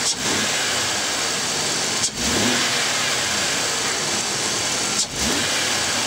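A 2002 Ford Taurus V6 running under the hood, its throttle snapped three times so that it revs up briefly about every two to three seconds. This is a snap-throttle test for a cylinder-one misfire under load, which is traced to a weak ignition coil.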